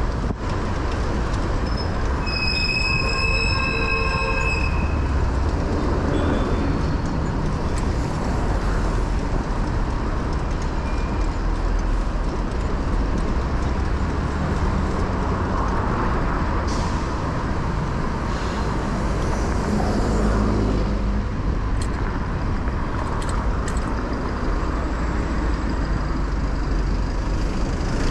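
City street traffic heard from a moving bicycle, a steady low rumble throughout. A brief high-pitched squeal rings out a couple of seconds in and lasts about two seconds.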